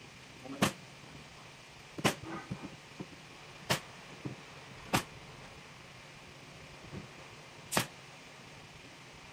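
Pneumatic staple gun firing single shots into upholstery fabric on a wooden frame: five sharp snaps, one every one to three seconds.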